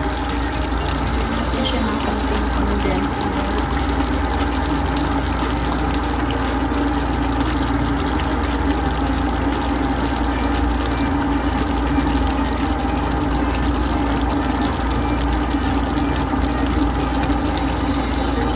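Tomato spaghetti sauce boiling hard in a frying pan, thick bubbles popping steadily, over a constant low hum.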